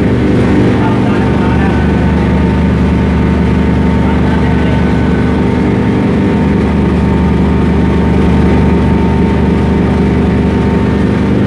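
Pulverizer-type atta chakki flour mill with a cyclone system, running steadily while it grinds wheat into flour. It makes a loud, even machine drone with a constant hum and does not change.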